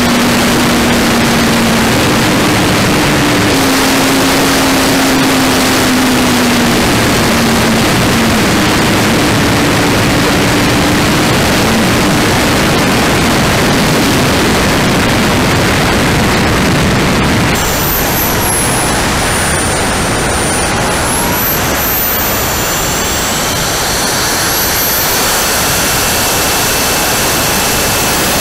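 Radio-controlled model jet in flight, heard from its onboard camera: a loud, steady rush of air and engine noise, with a low hum that steps up and down in pitch in the first half. About two-thirds through the sound changes to a thinner rush with high whines that glide up and down.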